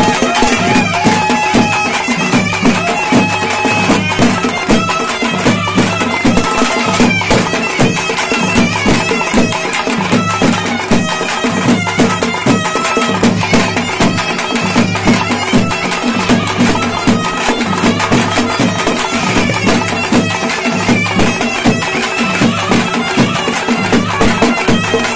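Naiyandi melam folk band playing: a loud reed pipe melody over fast, steady beating on double-headed barrel drums.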